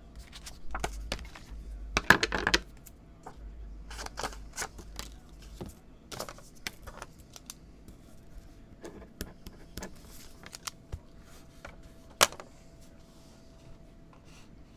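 Scattered clicks, taps and brief rustles of small objects being handled on a tabletop, with a louder rustling clatter about two seconds in and a single sharp click near the end.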